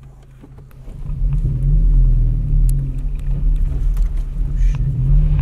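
Car driving on a gravel road, heard from a camera mounted on the front of the car: a loud, low rumble of engine and tyres that swells in about a second in and then holds steady.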